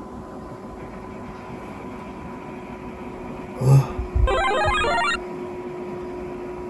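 A man's short startled "ah?" on waking, followed at once by about a second of an electronic alarm ringtone, a quick run of stepping beeping tones. A steady faint electrical hum runs underneath.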